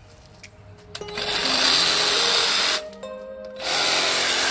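Cordless DeWalt reciprocating saw running in two bursts of about a second and a half each, its blade cutting into the edge of a painted wooden stool, with a short pause between the bursts.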